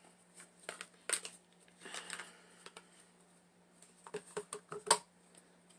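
Irregular plastic clicks of keys being pressed on a handheld Dymo label maker's keypad, about ten taps with a quick cluster and the loudest click near the end.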